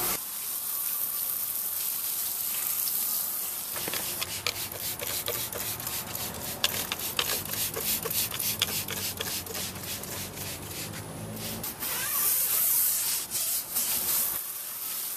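A stiff-bristled brush scrubbing a wet rubber tire, with a run of short, quick squirts from a trigger spray bottle of tire cleaner through the middle.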